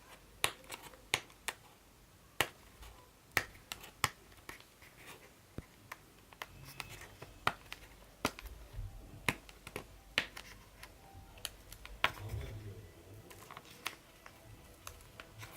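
Sharp, irregular clicks and taps of a hard plastic phone case being handled, about one a second, with a little scratching.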